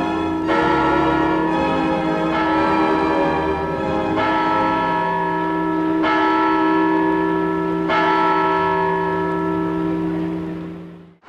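Clock-tower bell striking the hour, with a series of strikes that each ring on, the later ones about two seconds apart. The ringing cuts off abruptly near the end.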